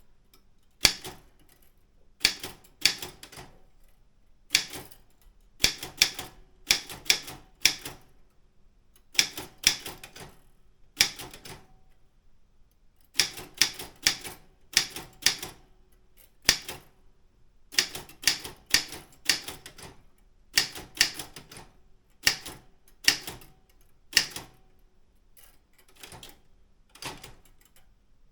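Daro Optima M16 manual typewriter being typed on: sharp key and typebar strikes at an uneven pace of a few per second, in short runs separated by brief pauses, with one longer pause about halfway through.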